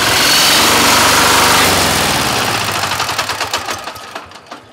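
Single-cylinder engine of a walk-behind tractor (motocultor) towing a trailer, running as it drives past and fading away. Its even firing pulses stand out as it fades.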